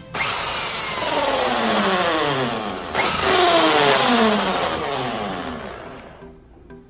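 Black+Decker corded hand drill driving a 32 mm hole saw into the plastic inner panel of a Yamaha NMAX155 scooter, a loud whirring grind whose pitch keeps falling as the saw teeth bite. It pushes harder and gets louder about three seconds in, then winds down and stops about six seconds in.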